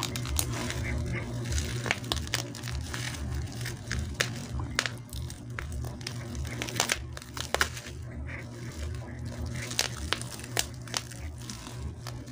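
Plastic bubble wrap being crinkled and pulled open by hand, giving many irregular crackles and snaps.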